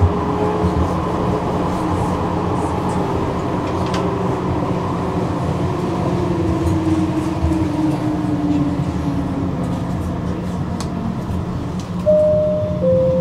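Tram running on its rails, heard from inside the car, with a steady rumble and a motor whine that slowly falls in pitch as it slows. Near the end a two-note chime sounds, high then lower, the signal before the next-stop announcement.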